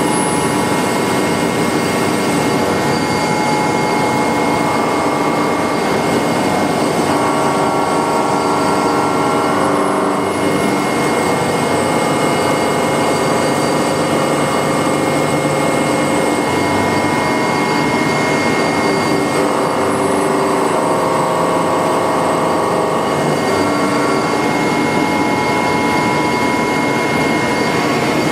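Milling machine cutting metal with an indexable-insert milling cutter: a steady, loud machining noise with high, sustained ringing tones that shift slightly in pitch a couple of times.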